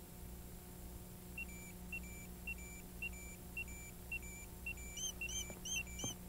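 Tamagotchi virtual pet beeping: a short high two-note electronic beep repeats about twice a second, and near the end a faster run of chirps joins in. It is the pet's call for care, here because it is hungry.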